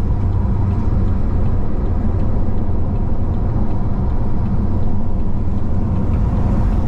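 Steady engine and road rumble inside the cabin of a supercharged Chevy SS V8 sedan cruising at a constant pace.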